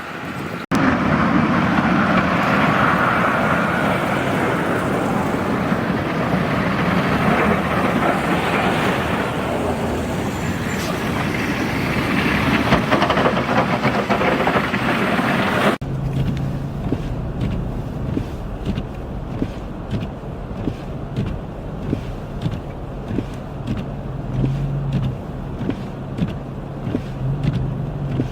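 Road vehicle noise in two stretches. First comes an even rushing noise. After an abrupt cut about 16 s in, a steady low engine hum follows, dotted with many short knocks.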